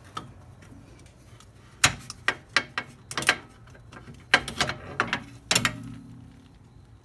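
Hand tools clicking and clanking on metal as an Allen-head socket stuck on a sway-bar bolt is worked at. Irregular sharp knocks start about two seconds in.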